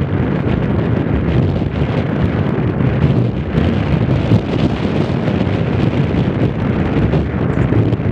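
Wind buffeting the microphone: a loud, continuous, fluctuating rumble.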